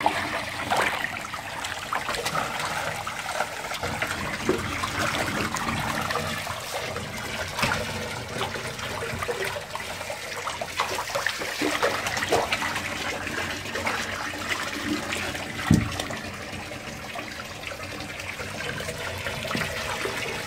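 Water splashing and churning as a crowd of koi thrash at the surface of their tank, over a steady rush of moving water, with many small slaps and splashes. A louder thump about 16 seconds in.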